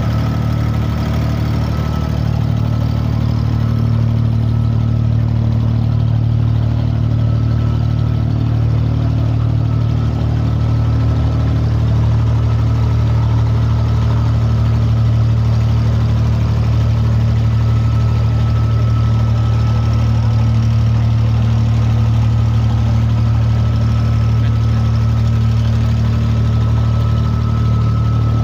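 Engine of a wooden creek-crossing boat (abra) running steadily, a loud, even low hum heard from on board.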